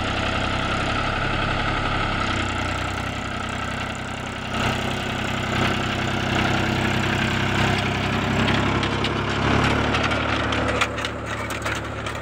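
Mahindra 275 DI TU tractor's three-cylinder diesel engine running steadily while it pulls a potato planter through the field, with a rattle of clicks near the end.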